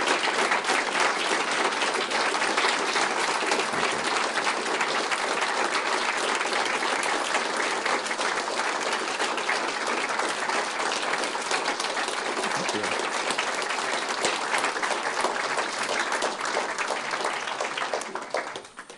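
A large audience applauding, a dense, steady clapping that dies away near the end.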